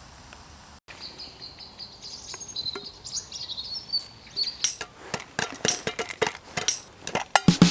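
Popcorn kernels popping in a covered metal pot on a small alcohol can stove: sharp, irregular pops that start about halfway through and come faster and faster. Before that, a few high birds chirp.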